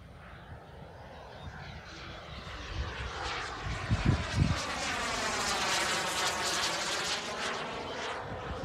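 Radio-controlled model airplane flying past. Its motor sound swells as it approaches, peaks, and then eases off as it moves away. A couple of low thumps come about four seconds in.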